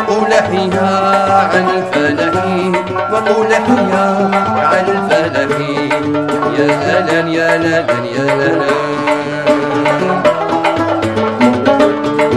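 Instrumental passage of Algerian chaabi music: plucked string instruments playing a melody over a hand-drum rhythm, with no singing.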